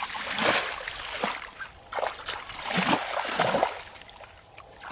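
Bare feet kicking and wading through a shallow muddy puddle, splashing and sloshing the water in repeated bursts with short pauses between them.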